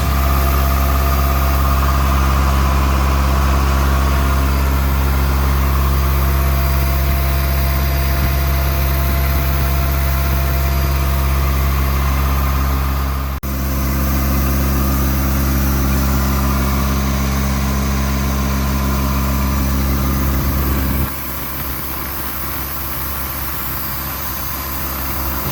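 Diesel engine of an Ingersoll-Rand P185WJD towable air compressor running steadily with a deep drone. About 21 s in the sound steps down noticeably quieter and the low drone weakens.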